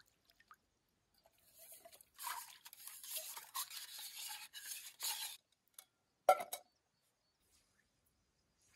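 Metal camp mug being scrubbed and rinsed by hand in shallow lake water: a rough scrubbing and swishing sound for about four seconds, then a single sharp clink a second later.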